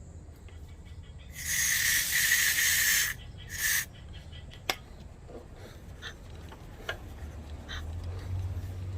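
Pressurized spray from a nozzle hissing in two bursts, a long one then a short one, followed by a single sharp click, during engine repair work.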